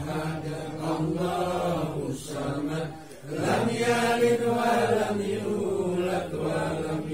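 A group of men chanting tahlil prayers in Arabic together, in long, drawn-out held notes, with a short breath pause about three seconds in before the chant resumes louder.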